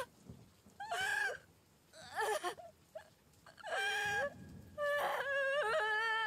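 A boy crying aloud in several sobbing wails, the last one long and held, starting about five seconds in.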